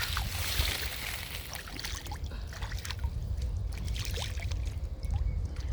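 Pond water trickling and splashing as a freshly caught fish is rinsed in it by hand, louder in the first couple of seconds and then thinning out.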